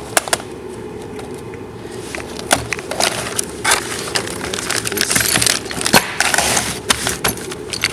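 Small metal parts of a push rod kit (rods, clevis, pin) clinking and clicking as they are handled, with packaging rustling about five to six and a half seconds in, over a steady low hum.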